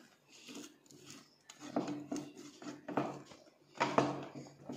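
A silicone spatula scraping and knocking against the sides of a pot as a thick fudge mixture is stirred, in irregular strokes. The loudest knock comes near the end.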